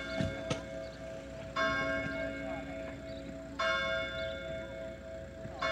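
A church tower clock bell strikes the hour of five. Strokes come about every two seconds, three inside this span, and each rings on until the next is struck.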